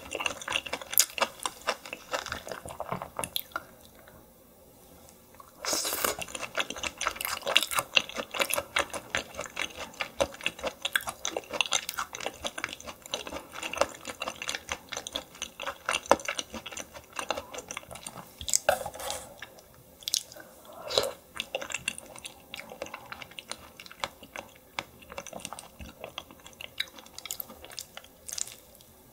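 Close-miked mouth sounds of a person chewing food: a dense run of wet clicks and small crunches, with a brief pause about four seconds in.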